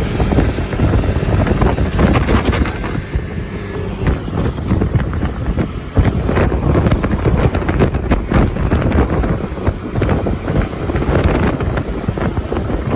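Wind buffeting the microphone of a rider on a moving moped: a loud, uneven rush, with the moped's running and road noise underneath.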